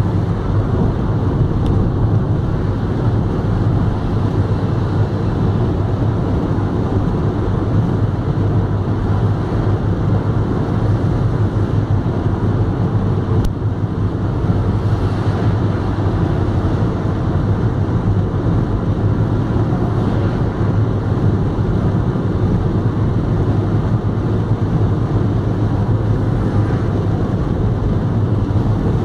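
Steady road noise of a car driving at motorway speed, heard inside the cabin: tyre and engine drone, strongest low down, even throughout.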